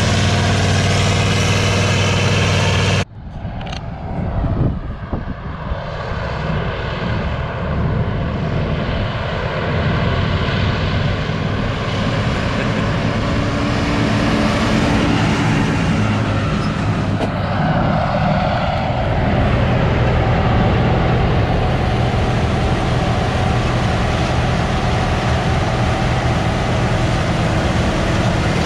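Large diesel engine of harvest machinery running steadily. About three seconds in the sound cuts abruptly to another take, where engine running goes on under a steady hiss.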